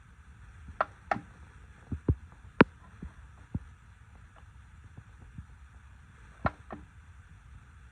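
Irregular clicks and light taps of a light alarm clock's buttons and dimmer being pressed, about eight in all with a long gap in the middle, as someone tries to adjust the brightness.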